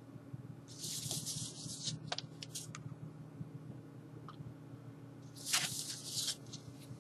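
Cardboard LP album jacket handled and turned over in the hands: two short brushes of rustling and sliding, about a second in and again near the end, with a few light clicks between.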